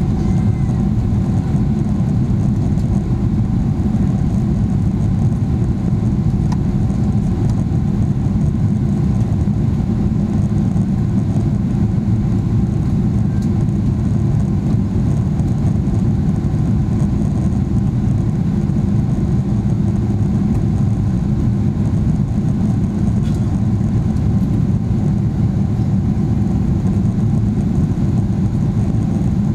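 Steady, loud low rumble of a Boeing 777-300ER jet airliner's GE90 engines running, with no rise or fall in level.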